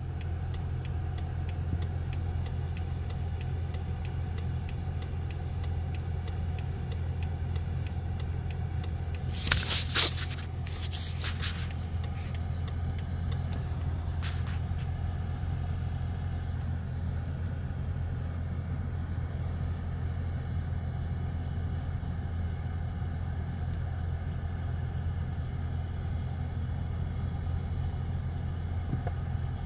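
BMW engine running at low revs, a steady low hum heard from inside the cabin while the self-parking system steers. A quick cluster of sharp knocks or clicks comes about ten seconds in, with a few fainter ones just after.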